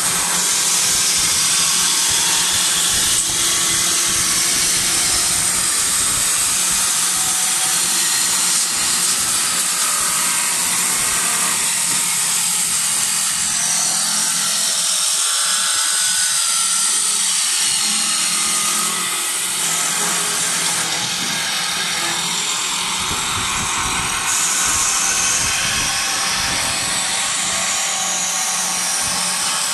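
Automatic wood spindle turning lathe running, its cutters shaving a spinning wooden chair-spindle blank with a steady high-pitched hiss and whine.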